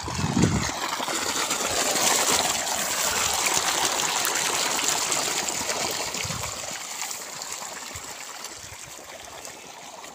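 Irrigation water pumped out of a delivery pipe, gushing and splashing steadily into a field channel; the rushing fades over the last few seconds.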